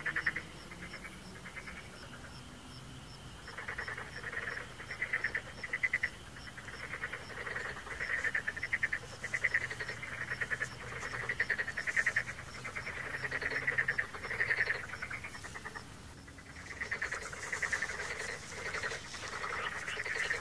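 Frogs croaking: repeated bursts of fast, pulsed croaks following one after another, with a short pause near the end.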